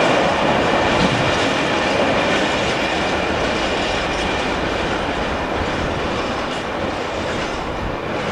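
Freight train hopper wagons rolling past, with a steady rumble and clatter of wheels on the rails that slowly fades as the end of the train moves away.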